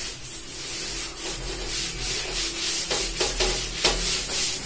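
Handheld eraser rubbing across a whiteboard in repeated wiping strokes, a dry scrubbing sound as the writing is cleared off.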